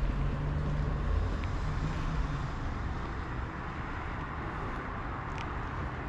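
A motor scooter's engine passing and fading away over the first couple of seconds, leaving a steady outdoor street hum.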